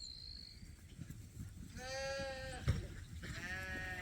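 Lambs bleating: one call about two seconds in and another near the end, with a short dull thump between them.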